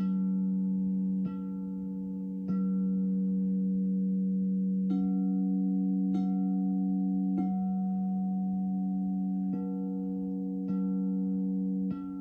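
Crystal singing bowls ringing in steady, overlapping sustained tones, with a soft strike about every second and a quarter, in groups of three, that renews the ringing.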